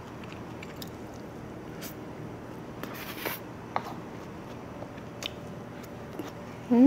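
Quiet eating: a spoon clicking now and then against a bowl of fried rice, with soft scraping and chewing. A short hummed 'mm' rises in pitch right at the end.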